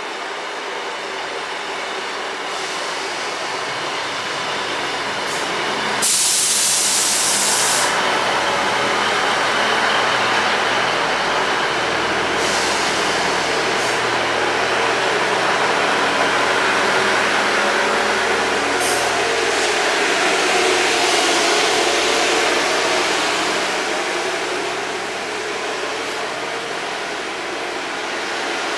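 Northern Class 158 diesel multiple unit pulling into the platform and standing with its diesel engines running. Its sound builds over the first few seconds. About six seconds in, a sudden loud hiss of air lasts a couple of seconds, and a few shorter hisses come later.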